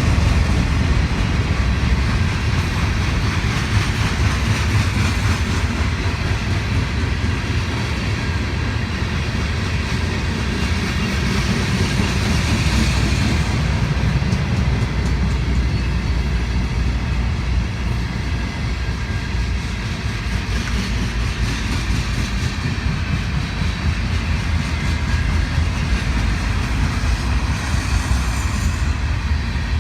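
Union Pacific mixed freight train passing, its rail cars rolling by steadily.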